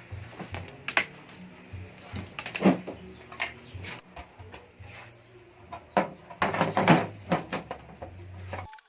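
Irregular knocks, clicks and rattles of a TV's back cover being handled and fitted back into place on the set, with about a dozen sharp strokes, the loudest near a third of the way in and around two-thirds through.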